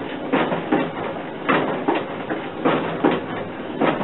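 The mechanical base of a 1950s Robinson Partners coin-operated kiddie ride running, its mechanism knocking and rattling in an uneven rhythm of about two knocks a second.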